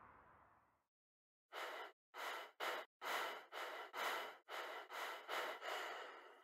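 Rapid, heavy breathing: about ten quick breaths in and out, close together, starting about a second and a half in.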